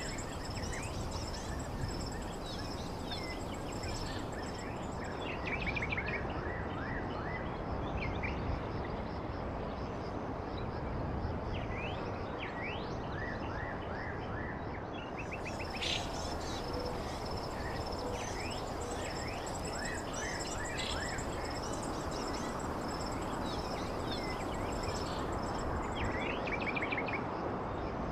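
Outdoor nature ambience: birds chirping and trilling on and off over a steady background rush, with a continuous high-pitched insect drone.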